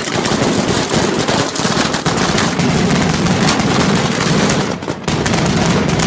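Fireworks going off in a dense, rapid barrage of bangs and crackles, with a short lull about five seconds in.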